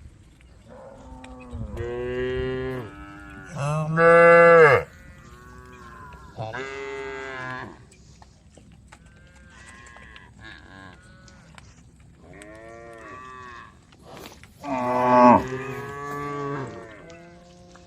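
Several cows mooing in turn, calling to the herd: about six long, drawn-out moos, the loudest about four seconds in and again near fifteen seconds, with fainter calls between.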